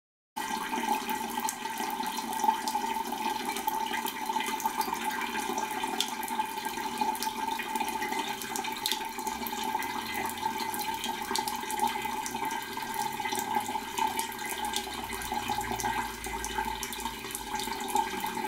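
Leaking wall tap running in a thin stream, water splashing steadily onto a tiled shower floor. It starts abruptly just after the beginning.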